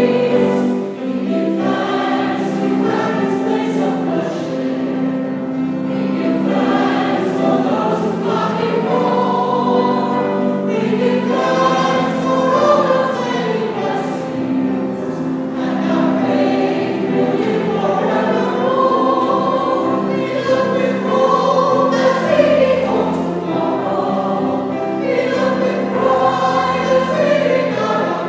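Mixed church choir of men and women singing in parts, accompanied by an organ holding steady low chords underneath.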